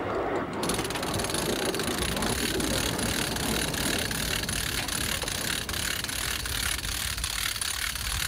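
An engine running steadily, starting suddenly about half a second in, with many faint clicks over it.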